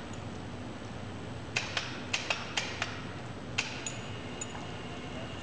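Light metal clicks and taps as a ram is fitted back onto the ram shaft of a Cameron ram-type blowout preventer: about six quick clicks from a second and a half in, then one or two more near the end, over a steady hiss.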